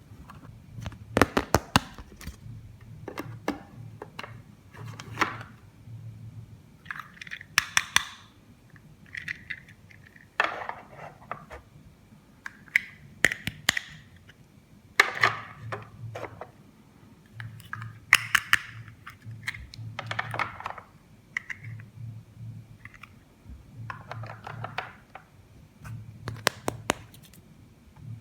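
Plastic toy pieces and packaging being handled: irregular clicks, taps and short scraping rustles.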